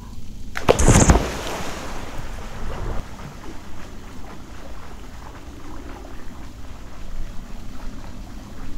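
A person diving into a reservoir: one loud splash about a second in, then the water churning and settling, and lighter splashes of swimming strokes. Wind rumbles on the microphone throughout.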